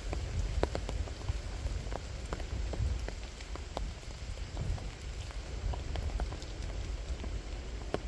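Rain falling, with individual drops ticking irregularly and closely, over a steady low rumble.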